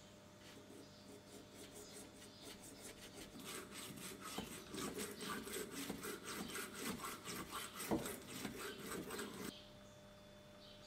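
0000 steel wool and honing paste on a wooden stick scrubbing in and out of the pepperbox's iron barrel bores: a fast, even scraping at about five strokes a second that builds up and stops suddenly near the end, with one sharp knock about eight seconds in.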